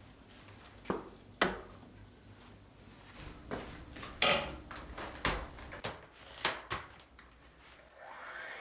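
A series of separate clinks, knocks and clatters of household items being picked up and set down, about seven in all. Near the end a cordless stick vacuum cleaner's motor starts up, its whine rising as it spins up.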